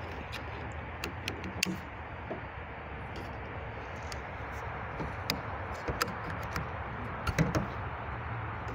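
Scattered light metallic clicks and taps as a spring button clip is worked into the end of an aluminium awning pole, over a steady background hiss. The clicks come a few at a time, a little louder near the start and again towards the end.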